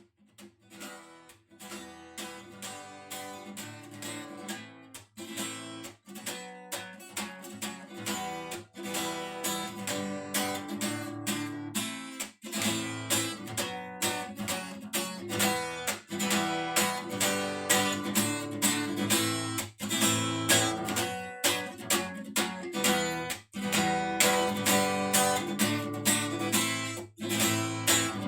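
Acoustic guitar strummed in a steady rhythm, playing the song's instrumental introduction; it starts softly and grows louder over the first several seconds.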